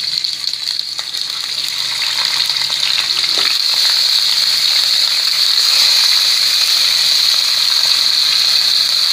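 Marinated chicken pieces sizzling as they go into hot oil in a pan: a steady frying hiss with light crackles. It grows louder over the first few seconds as more pieces are added, then holds.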